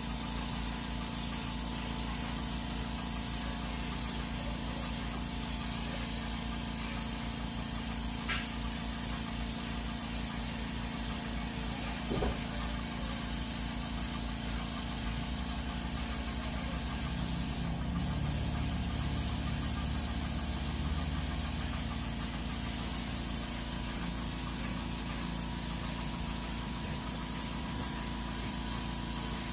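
Air spray gun hissing steadily as paint is sprayed, with an air compressor motor running underneath; the low hum swells for a few seconds past the middle.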